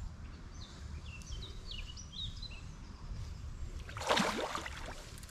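A hooked common carp splashing at the surface of the lake about four seconds in, a sudden splash lasting about half a second. Before it, birds chirp with short calls.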